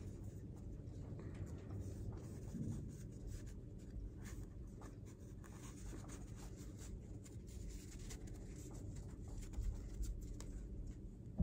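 A blue paper shop towel rustling and rubbing as hands fold it and press it tight around a wooden block, with small scratchy ticks throughout.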